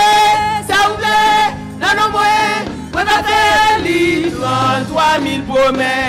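Gospel worship song: voices singing held, sustained notes over steady instrumental accompaniment.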